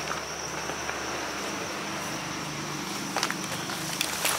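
Footsteps pushing through tall grass and weeds, with a few sharper rustles about three and four seconds in, over the steady high chirring of crickets.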